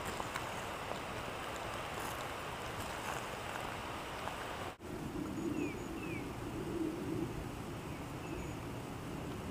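Steady wind-like outdoor noise with a brief dropout about halfway through. After it, a low wavering hum and a few faint, short falling bird chirps.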